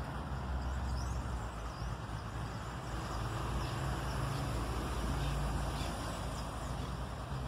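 Steady low rumble of road traffic, with a few faint high bird chirps.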